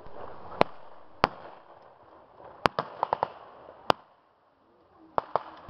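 Rifle shots fired with blanks in a staged battle: about ten sharp, irregular cracks, each with a short echo, including a quick run of four or five a little past the middle.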